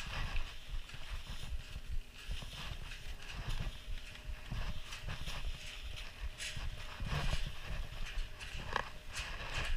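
Footsteps of ski boots on packed snow, a repeated plodding thud of someone walking.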